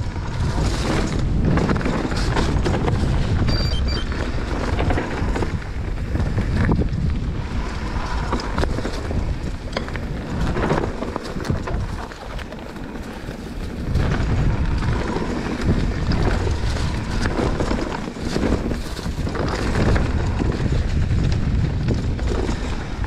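Mountain bike riding down a dry dirt trail: wind buffeting the microphone over tyre noise on the dirt and the bike rattling and knocking over bumps. The noise eases briefly a little past halfway, then picks up again.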